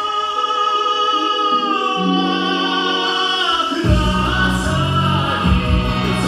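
Singing over a backing track: a long held note, with the bass dropping out at first and coming back in about four seconds in.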